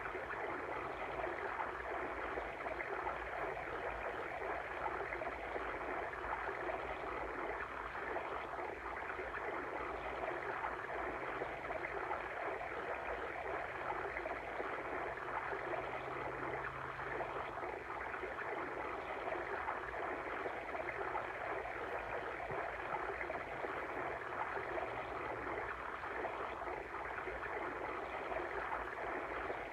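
Water stream flowing and babbling steadily, an even rushing that does not let up.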